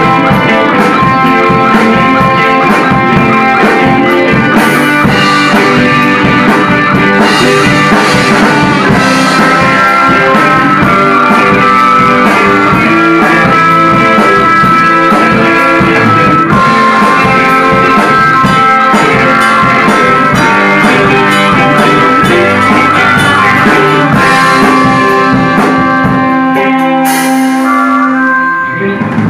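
Live rock band playing, with guitar and drum kit. Near the end the song closes on a held chord that dies away.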